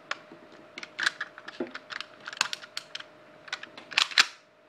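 Irregular small clicks and clacks of a Colt M1911A1 airsoft spring pistol being reassembled by hand, as its assembly pin is pushed through and the parts are worked, with two louder clacks about four seconds in.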